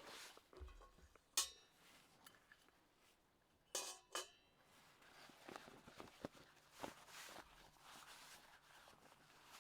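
Metal cookware and utensils clinking as they are handled: one sharp ringing clink about a second and a half in, two more close together around four seconds in, then softer knocks and rustling.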